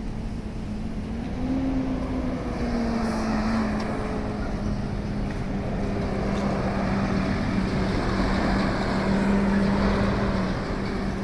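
A vehicle engine running with a steady hum that rises a little about a second in and then slowly drops in pitch, over a continuous rush of outdoor noise.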